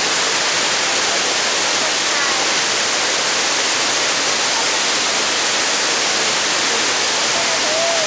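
Water released through the open spillway gates of a large concrete dam, pouring down the dam face in a massive torrent and crashing below: a loud, steady rush with no let-up.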